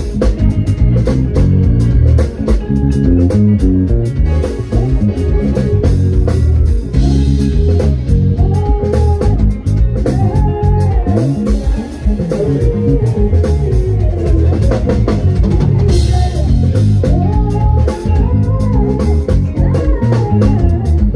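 Band music with electric guitar and a drum kit keeping a steady beat.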